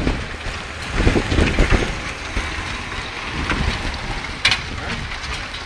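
Severe storm wind gusting over the phone's microphone in uneven low rumbles, with a brief click about four and a half seconds in.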